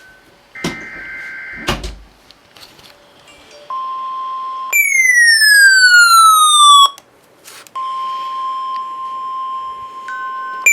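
NOAA Weather Radio alert: the end of a buzzy SAME data burst, then the steady 1050 Hz warning alarm tone from a little over three seconds in. About four and a half seconds in, a weather alert radio's own loud siren alarm cuts in as one falling sweep lasting about two seconds. The steady alarm tone then returns, and the next falling sweep begins at the very end.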